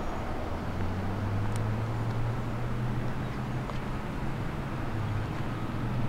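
2016 Chevrolet Corvette Stingray's 6.2-litre LT1 V8 idling with a steady, even low hum, heard from outside the car.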